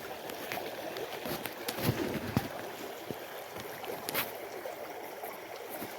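Mountain stream rapids rushing steadily, with a few light clicks and knocks.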